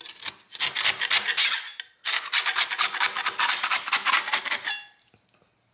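Rapid back-and-forth scrubbing or scraping on a Bridgeport milling machine part, working at hard, dried-up oil. The strokes come in two bouts, with a brief break about two seconds in, and stop shortly before the end.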